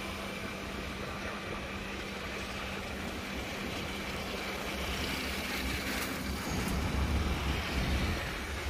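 Steady road and traffic noise while riding along a city road: vehicle engine hum and tyre rumble. A low steady hum drops out about two-thirds of the way through, and the low rumble grows a little louder near the end.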